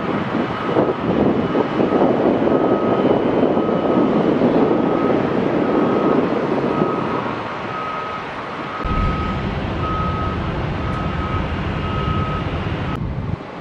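Jet aircraft noise at an airport: a steady rushing that eases off after about seven seconds. A high beep repeats about once a second throughout. A low rumble comes in sharply about nine seconds in.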